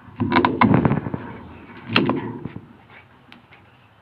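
Sun bear biting and tearing at a coconut's husk with its teeth and claws: a burst of cracking and crunching in the first second, another sharp crack about two seconds in, then a few small ticks.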